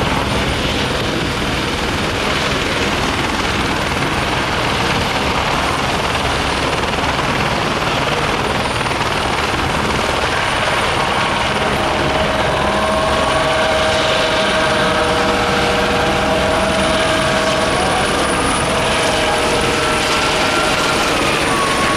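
Helicopter taking off and flying overhead: a steady, loud rush of rotor and engine noise that grows a little louder about halfway, with a whine that wavers in pitch over the second half.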